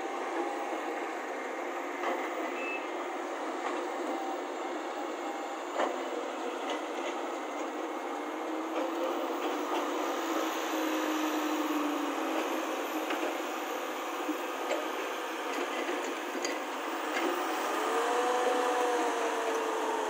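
Diesel engines of a Volvo excavator and Tata dump trucks running steadily, with a few faint knocks, as a loaded tipper truck drives off up a dirt track. Near the end an engine note rises and then holds.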